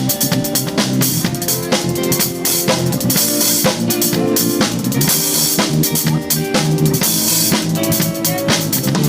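Drum kit played in a full groove, with dense kick, snare and cymbal hits, in time with a band's pitched instruments holding notes underneath.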